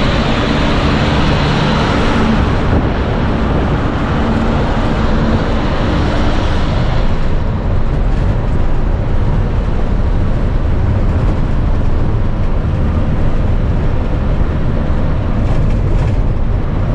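Steady engine drone and road noise heard from inside a moving bus. A rush of wind and tyre hiss is louder for the first seven seconds or so, while it runs alongside another bus, then settles to a lower, duller rumble.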